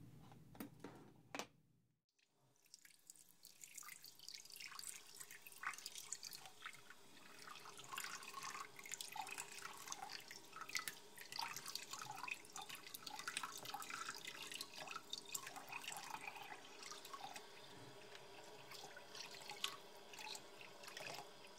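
Water trickling and dripping into a sink, a dense patter of small splashes that sets in after a brief hush about two seconds in.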